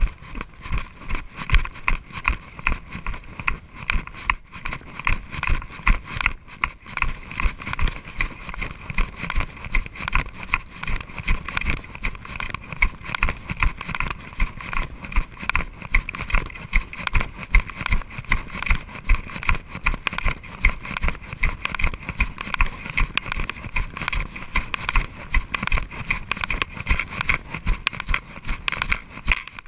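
Mountain bike rattling and knocking as it rides fast over a bumpy, leaf-covered dirt trail, a steady high buzz running under constant rapid clatter and frequent thumps.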